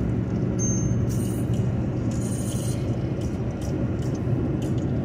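Steady road and engine rumble of a car driving on a highway, with a couple of brief faint high clinks.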